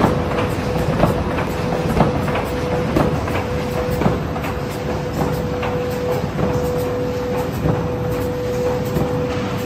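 Automatic corrugated-carton flexo printer slotter die-cutter line running, a steady mechanical hum with a constant whine and a sharp clack about once a second.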